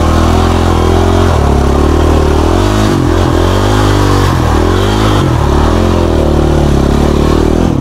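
Dirt bike engine running under load on a steep trail climb, its revs dipping and rising several times in the middle as the throttle is worked.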